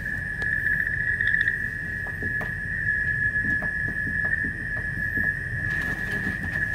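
Steady high-pitched electronic tone from the Samyung SRG150DN MF/HF marine radio, with a low hum beneath and a few faint clicks.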